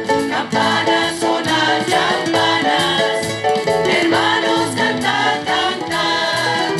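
A church choir singing with instrumental accompaniment.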